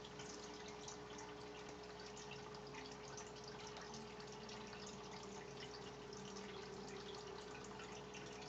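Water trickling and dripping in a running home aquarium, a continuous patter of small splashes over a steady hum.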